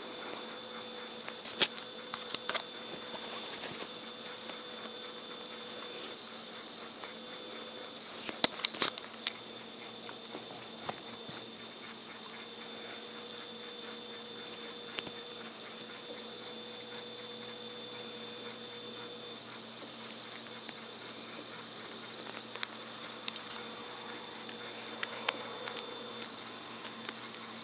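A kitten scrabbles and bats at a string on a bedspread, making light rustles and scattered sharp taps, with a cluster of clicks about eight seconds in. A faint steady hum runs underneath.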